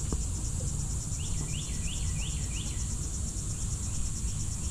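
Steady, rapidly pulsing high trill of insects, with a bird singing a run of five quick repeated notes about a second in.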